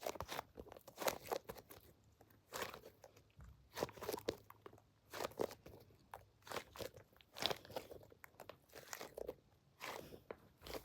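Foam strawberry squishy being squeezed and handled close to the microphone: irregular soft crackling and scrunching, a cluster of clicks every second or so.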